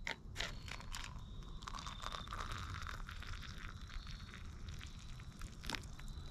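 Faint handling noises: scattered small clicks, crinkling and rustling, with a soft hiss for about a second near the middle.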